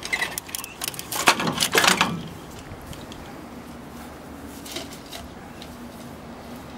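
Clattering of metal brackets and wiring being wrenched loose from a scrapped motor-drive cabinet, a quick run of clicks and knocks for about two seconds. After that come only a couple of faint knocks over a faint steady low hum.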